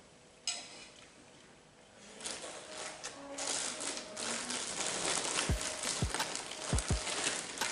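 A clear plastic bag of krupuk crackers crinkling and rustling as it is handled, starting about two seconds in, with a few low thuds in the second half.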